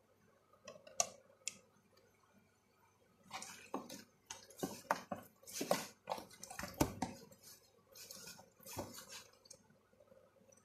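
Plastic food tub being handled as seasoning is rubbed into raw chicken legs. There are two light clicks about a second in, then a busy run of scrapes, rustles and knocks against the tub from about three to nine and a half seconds.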